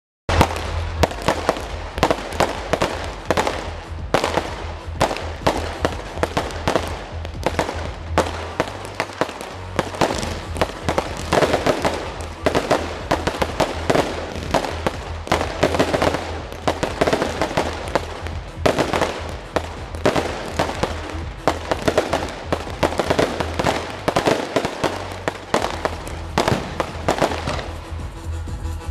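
Aerial fireworks display: a rapid, continuous run of shell bursts and crackling, with music playing alongside.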